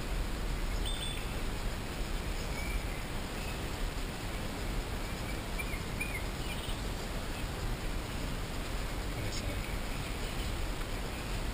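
Steady outdoor background noise, a rushing hiss heaviest in the low end, with a few short bird chirps scattered through it.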